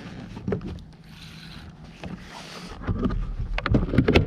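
Water sloshing against a plastic fishing kayak's hull as it rocks, with a run of louder knocks and clicks on the hull in the last second or so.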